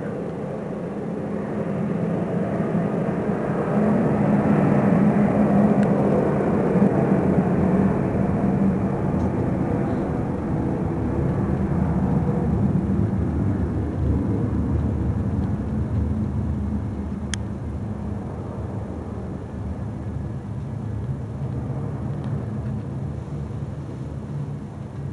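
McDonnell Douglas MD-80 airliner's rear-mounted JT8D jet engines at takeoff power during the takeoff roll. The rumble builds over the first few seconds, is loudest at about five to eight seconds, then slowly fades as the jet rolls away down the runway.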